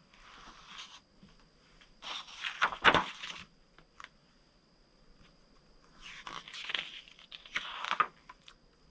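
Pages of a hardcover picture book being turned by hand, with paper rustling. One turn comes about two seconds in and ends in a soft thump near three seconds, the loudest sound; a second turn rustles from about six to eight seconds in.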